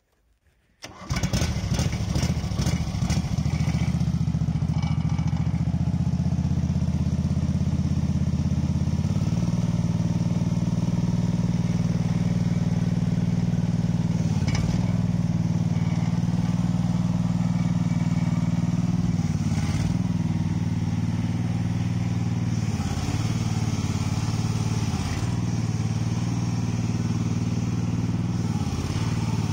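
Small air-cooled petrol engine starting abruptly about a second in and then running steadily. Its pitch drops briefly several times as the hydraulic levers are worked, loading the engine.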